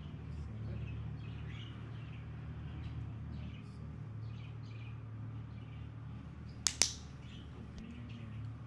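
A dog-training clicker gives a sharp double click, press and release, about two-thirds of the way in, marking the moment the dog lies down. Birds chirp faintly in the background over a low steady hum.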